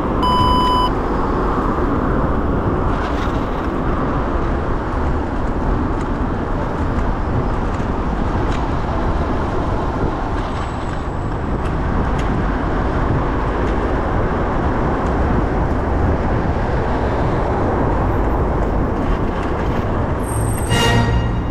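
City traffic noise heard from a moving bicycle: cars running alongside and a steady low rumble of wind and road on the camera's microphone. A short electronic beep sounds about half a second in, and a brief pitched tone comes near the end.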